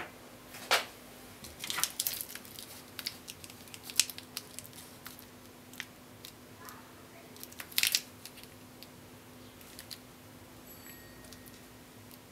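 Handling noise from small ER11 spindle collets and the clear plastic bag one is packed in: scattered sharp clicks and knocks with some plastic crinkling, the loudest about one, four and eight seconds in. A faint steady hum lies underneath.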